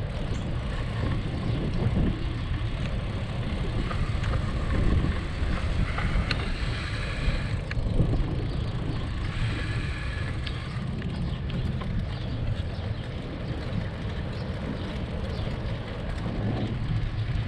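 Wind buffeting a bicycle-mounted camera's microphone as it rides along a street, a steady low rumble with road noise underneath.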